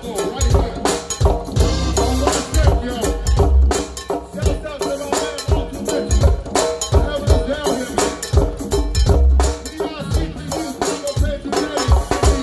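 Go-go band playing live: conga drums hand-played in a busy, continuous groove over a heavy low beat.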